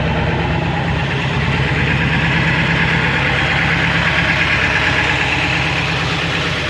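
7.3-litre V8 diesel engine running rough at high idle, a steady uneven pulsing, while it puffs unburnt raw diesel from the exhaust.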